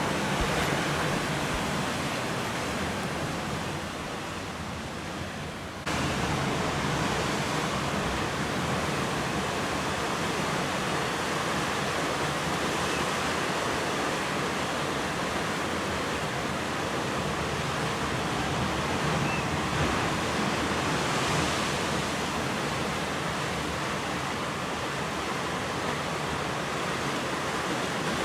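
Steady rushing noise of ocean surf breaking on a sand beach. It dips briefly and cuts back in suddenly about six seconds in.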